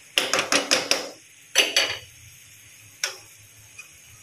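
Metal spoon clinking against a nonstick wok as a stir-fry is stirred. There is a quick run of about five clinks, a shorter cluster about a second and a half in, and one last clink about three seconds in.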